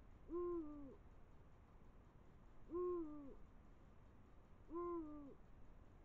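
Eurasian eagle-owl giving its deep courtship hoot three times, about two seconds apart. Each hoot lasts about half a second and dips slightly in pitch at the end.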